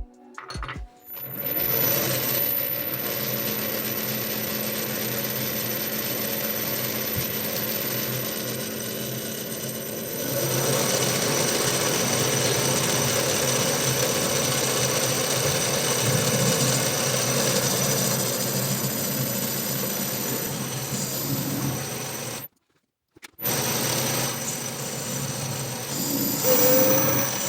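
Small metal lathe running steadily with a low motor hum, getting louder about a third of the way in. The sound breaks off for about a second near the end.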